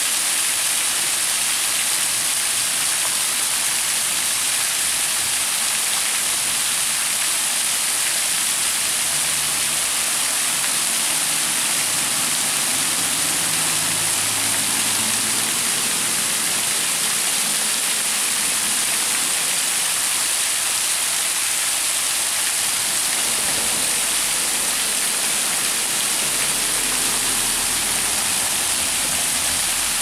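Small waterfall, thin streams of water falling off a rock ledge and splashing onto rocks below: a steady, even hiss of falling water.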